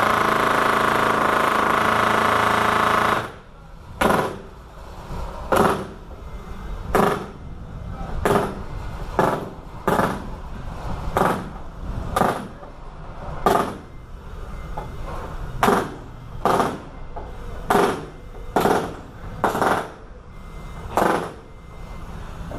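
A loud, steady power tool runs for about three seconds and cuts off suddenly. Then come single hammer blows, about one a second and unevenly spaced.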